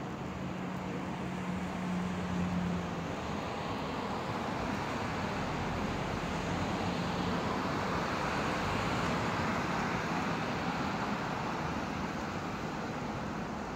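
Road traffic noise: a steady hiss of passing cars that swells and fades around the middle, with a low engine hum in the first few seconds.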